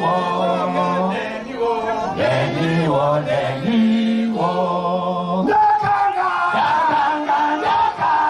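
A group of men singing a repetitive Shona chant, with long held notes that step up and down in pitch; about halfway through the melody moves higher.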